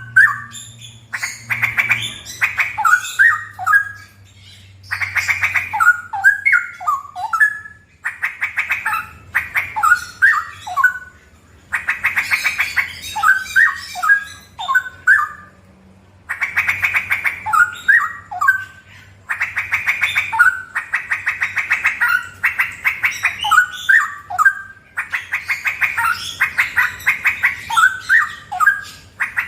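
Straw-headed bulbul (cucak rowo) singing loud, bubbling song phrases, one every three to four seconds with short pauses between. Each phrase opens with a fast rolling run of notes, the rapid 'ropel' delivery.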